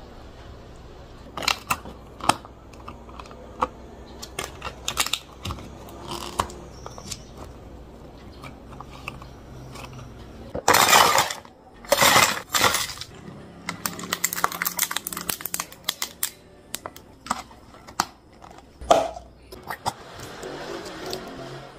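Clear plastic drink cups and lids being handled, with scattered light clicks and taps. About eleven and twelve seconds in come two loud plastic crackles as lids are pressed down onto two iced drinks, followed by a quick run of clicks.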